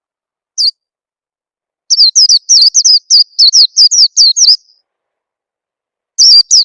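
White-eye (pleci) song, a bird-lure recording: a single high chirp, then a fast run of about a dozen high, downward-slurred chirps, roughly four a second, for under three seconds. Another run starts near the end.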